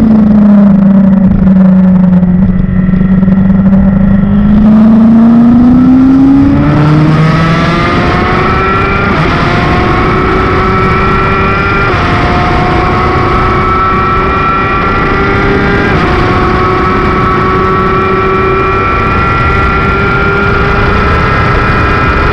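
Honda CBR1000 sportbike's inline-four engine held at low revs through a slow corner, then accelerating hard at full throttle up a long straight. The revs climb steadily in each gear, with three upshifts breaking the climb, as the bike goes from about 60 to 146 mph.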